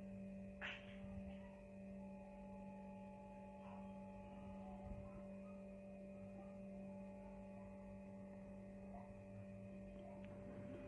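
Steady electrical hum with a faint higher tone that comes in twice for a few seconds, and one soft click about a second in.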